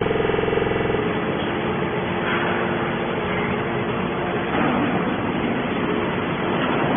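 Horizontal scrap metal baler running: steady, loud machine noise, with a buzzing hum during the first second.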